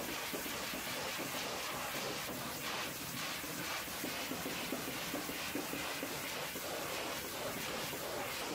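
Hot-water pressure washer jet spraying steadily against a semi truck's side skirt panels, an even rush of water spray.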